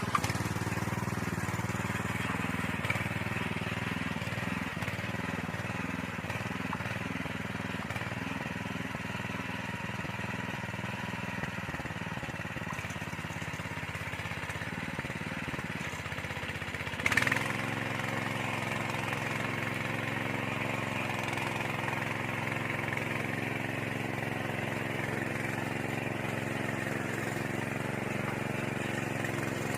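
Small engine of a walk-behind soil tiller running steadily. About 17 seconds in there is a brief loud clatter, after which the engine note settles lower and steadier.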